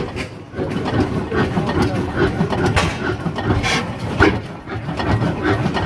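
The engine of a Fairbanks-Morse 15-25 hp tractor running, a continuous clatter with a few sharper knocks scattered through it.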